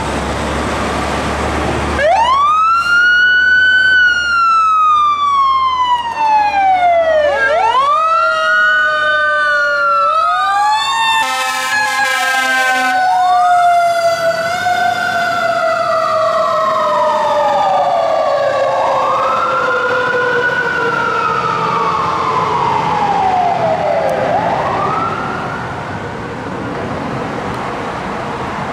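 Fire trucks responding with sirens: a diesel engine rumbles, then about two seconds in a siren starts wailing, rising quickly and falling slowly, over and over. A second siren overlaps from about seven seconds in, and an air horn blasts for about two seconds near the middle.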